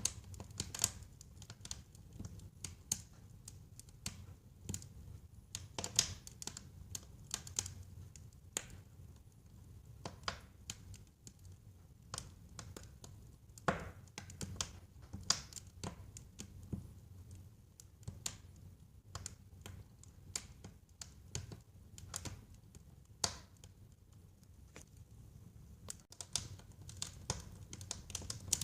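Wood fire burning in a fireplace: irregular sharp crackles and pops over a steady low rumble of the flames, with a few louder pops scattered through.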